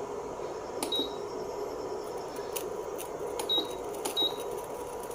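Preethi induction stove under test after repair: three short, high beeps from its control panel, each with a click, over the steady hum of the stove running while it heats water.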